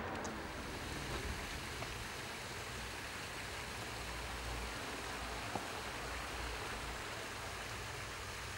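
Steady, even hiss of background ambience with a low rumble underneath, and a single faint click about five and a half seconds in.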